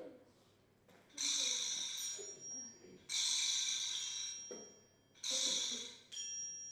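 Three breathy hissing blasts, each starting sharply and fading over about a second, with faint steady whistling tones in them.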